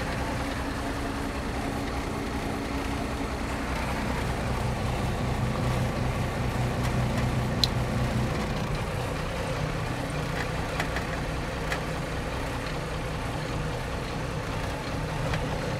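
A Valtra 8150's 6.6-litre six-cylinder diesel running steadily at low revs, heard from inside the cab. There is a light click about halfway through and two fainter ones later.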